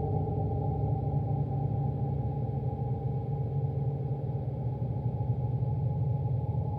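Lo-fi atmospheric black metal demo recording: a dense, muffled, steady low drone with no clear drumbeat.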